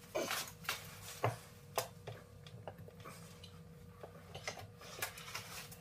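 Scattered light metallic clicks and knocks from an aluminium cylinder head being lowered onto an Audi 2.0 L turbo engine block, settling onto the head gasket and dowel pins. The louder knocks come in the first two seconds.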